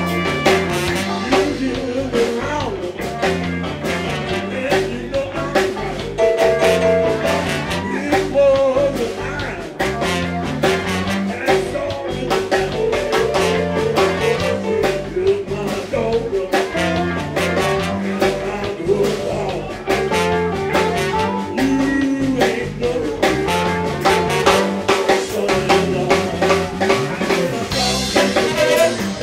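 Live blues band playing, with a drum kit keeping the beat.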